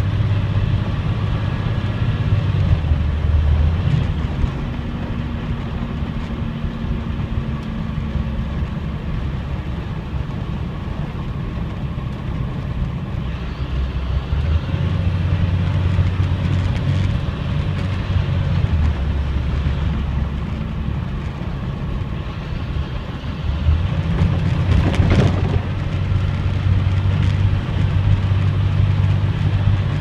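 School bus engine running and road noise heard from inside the cab while driving, the engine note shifting up and down several times as the bus speeds up and slows. There is a brief clatter about 25 seconds in.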